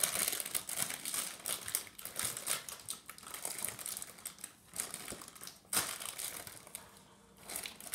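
A clear plastic bag crinkling and crackling as it is handled, dying down near the end.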